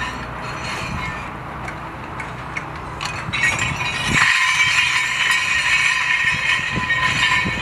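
Loose steel pieces clinking and jangling as they are handled by a lifting magnet on a John Deere 245G LC rail excavator: a few separate clinks at first, then a dense metallic jangling from about three to four seconds in.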